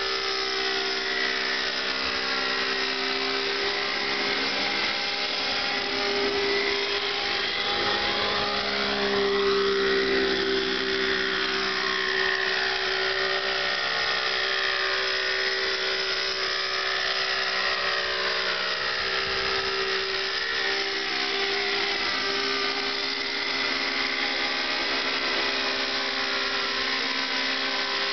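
Thunder Tiger Raptor 50 nitro RC helicopter flying low: its two-stroke glow engine runs steadily with the whine of the main and tail rotors. The pitch rises and falls a little as the helicopter moves.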